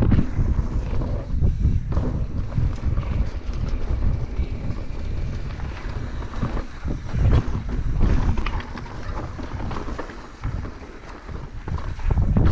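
Wind rumbling on a helmet-mounted action camera's microphone as a downhill mountain bike rides fast over a loose dirt and rock trail, with tyre crunch and scattered knocks and rattles from the bike over bumps. The rumble surges louder near the start, about halfway through and near the end.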